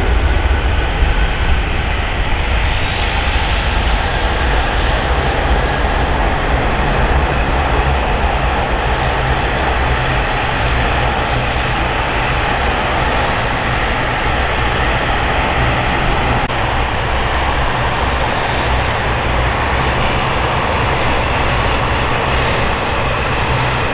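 Twin rear-mounted Rolls-Royce BR715 turbofans of a Boeing 717 running at high power: a loud, steady jet roar with deep rumble underneath, and an engine whine that rises in pitch a few seconds in and then holds.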